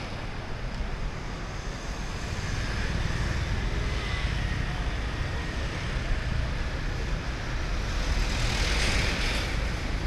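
Street traffic running steadily, a low rumble of passing vehicles, with a louder whoosh swelling up near the end.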